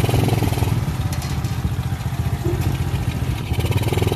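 Single-cylinder engine of a Rusi 100cc motorcycle converted into a three-wheeled trike, running steadily with a rapid pulse, easing off slightly around the middle.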